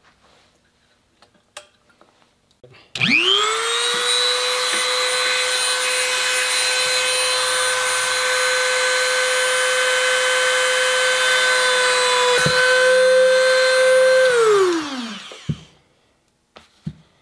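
Dremel rotary tool with a small carbide ball burr spinning up about three seconds in and running at a steady high whine as it cuts a pin hole in a small piece of gunstock wood. It is switched off near the end and winds down over about a second.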